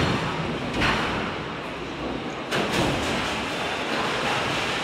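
Automated sheet-metal stamping press line running, with steady machinery noise and three heavy metallic thuds: one at the start, one just under a second in, and one at about two and a half seconds.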